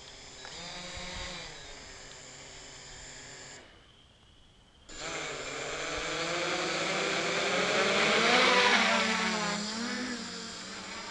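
Hexacopter electric motors and propellers whirring, several tones whose pitch shifts up and down as the throttle changes. After a short drop-out about 4 s in, the motors spin up for take-off, loudest around 8 s in, then ease as it hovers.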